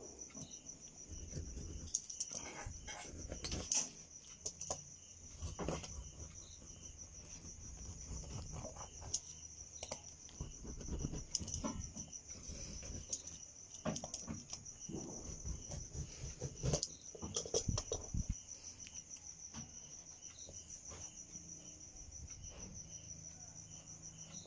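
A cricket trilling steadily in the background, a high continuous pulsing tone, with scattered soft knocks and rustles of cloth being handled and a tracing wheel run over it.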